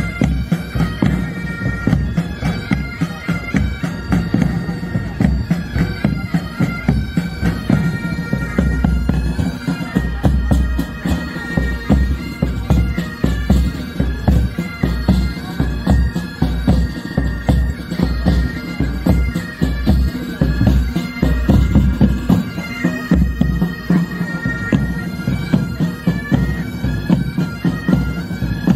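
Military pipe band playing: bagpipes carry a melody over their steady drones while the drums, bass drum included, beat out a regular marching rhythm.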